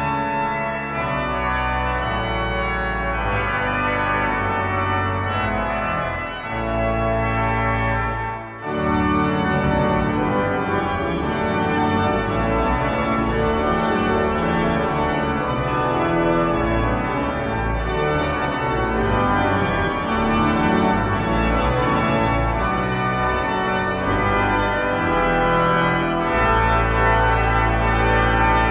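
Pipe organ playing sustained chords over deep held bass notes. About eight seconds in there is a short break, and then the playing resumes fuller and a little louder.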